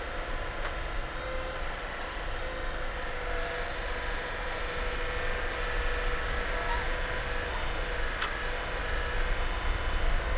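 Heavy vehicle engine running steadily as the tracked crawler drives and works its crane arm, with a steady hum held under the engine noise and one short click about eight seconds in.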